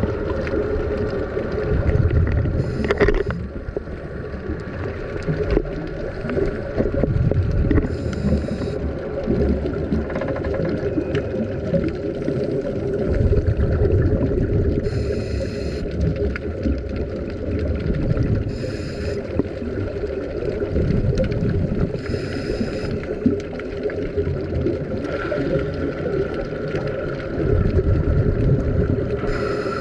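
Underwater recording of a scuba diver breathing through a regulator: a steady low rumble and hum, with a short hissing gurgle of exhaled bubbles every few seconds.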